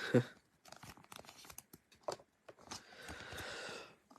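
Small clicks of handling, then a scraping slide lasting about a second near the end as a sleeved trading card is pushed into a rigid plastic top loader.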